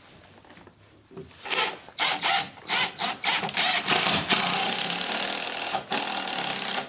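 Power drill driving a large star-head screw into a pre-drilled longleaf heart pine joist. The motor runs in a few short bursts at first, then in a steady run of about three seconds.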